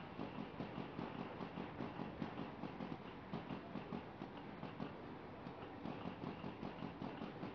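ZB1100A sheet-feeding paper bag tube forming machine running at production speed, a steady rhythmic clatter of about four clacks a second.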